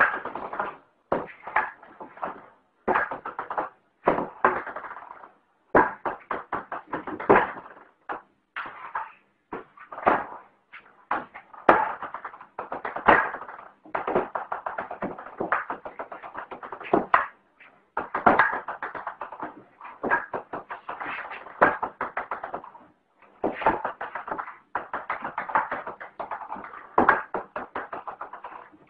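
Table tennis ball clicking on the table top and off a paddle in run after run of quick bounces, many runs starting with a sharp hit and trailing off in faster, fainter bounces, with short gaps between them.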